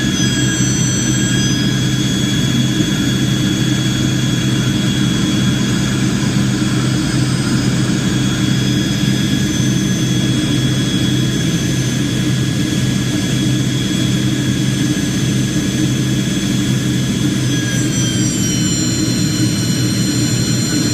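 Jet airliner engines running with a steady low rumble and several high turbine whines; near the end the whine tones shift in pitch as the engine power changes.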